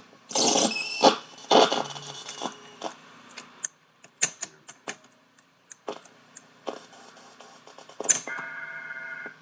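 A cassette recorder being worked: its transport keys click and the tape mechanism runs as the tape is wound back. About eight seconds in, playback of the recorded emergency alert starts as a set of steady electronic tones, a little fluttery from the tape.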